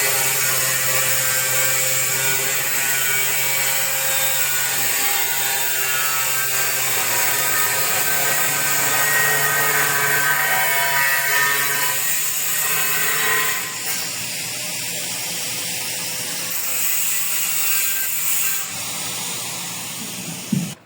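A power tool cutting tile runs steadily with a shifting whine, eases off about two-thirds of the way through, then stops abruptly near the end.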